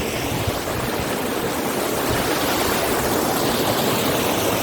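Steady rush of flowing water, as of a mountain waterfall or stream, with no let-up.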